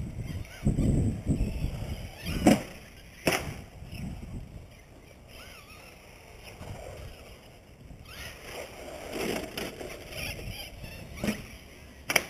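Traxxas 2WD Slash RC truck being driven hard: uneven rumbling and rattling with a faint wavering motor whine, broken by sharp knocks of landings and hits, two close together a few seconds in and two more near the end.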